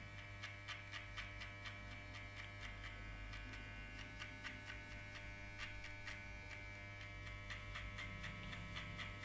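Electric hair clipper running with a steady, faint buzzing hum as it is flicked up through short hair to blend a fade line. A regular light ticking runs alongside it.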